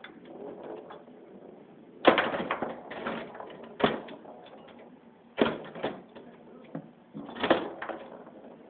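Foosball game in play: the ball struck by the rod figures and knocking against the wooden table sides, a run of sharp clacks in irregular clusters, the loudest about two seconds in.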